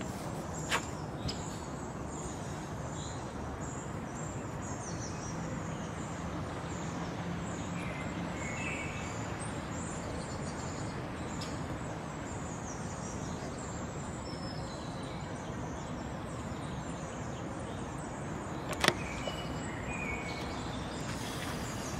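Steady outdoor ambient noise with a few faint bird chirps, and a single sharp knock near the end.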